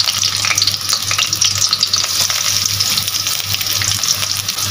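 Chopped onion frying in hot soybean oil in a pot: a steady sizzling hiss full of fine crackles and pops.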